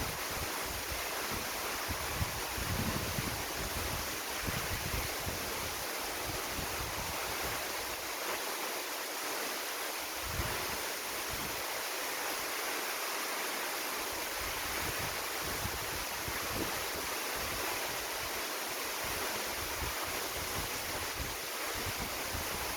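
Browns Falls waterfall and its creek rushing in a steady, even hiss, with some wind rumble on the microphone.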